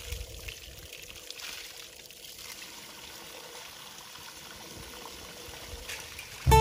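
Small mountain stream of spring water from an ice cave, running steadily out of a pond between rocks. Guitar music starts suddenly right at the end.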